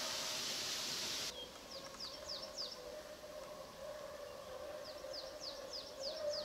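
A small songbird calling in two quick runs of high, downward-sweeping chirps, about three a second. Before it, a rushing hiss stops abruptly about a second in. A faint steady hum runs underneath.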